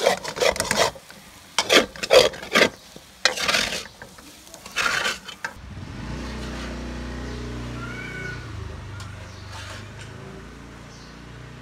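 Metal spatula scraping and tossing noodles in a steel wok during stir-frying: a quick run of strokes in the first half. From about six seconds a steady low hum takes over, with a few fainter scrapes.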